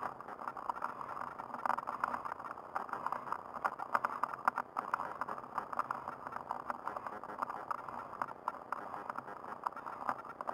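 Handbike rolling over rough asphalt, heard through its on-board camera: a steady, muffled rushing with dense small rattles and clicks from the road surface.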